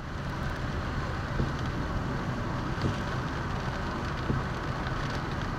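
Rain hitting the windshield of a moving car, heard inside the cabin over steady road and engine rumble, with scattered small ticks of drops.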